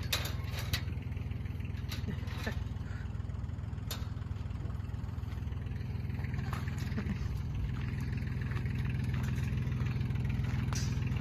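A low, steady engine hum that grows slightly louder, with a few sharp clicks in the first seconds.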